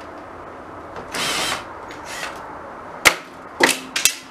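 Cordless drill whirring in short bursts overhead as screws are backed out of ceiling fittings, followed by a few sharp knocks near the end.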